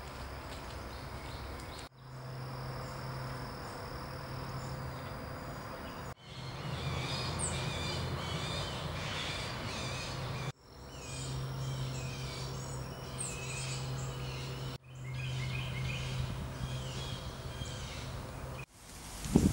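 Birds chirping and calling over a steady low hum of outdoor background noise. The sound breaks off with brief dips several times, at cuts between short clips.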